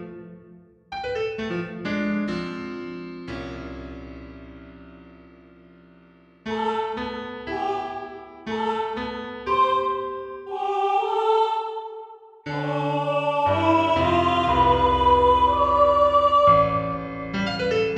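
Music: a few short phrases, then a long chord left to fade away, then a melody of held notes, and from about two-thirds of the way through a louder, fuller passage over a held bass note.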